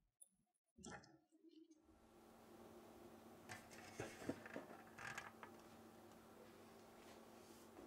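Faint light clicks and clatter of a metal baking sheet with a silicone mat being handled, over a faint steady hum.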